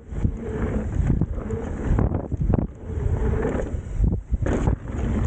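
Mountain bike descending a rough enduro trail at speed: wind buffeting the microphone over the rumble of tyres on dirt and rock, with repeated knocks and rattles from the bike over bumps.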